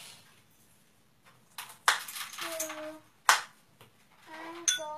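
Two sharp clacks about a second and a half apart, with rustling and handling noise between them. Near the end a young child vocalizes briefly without words.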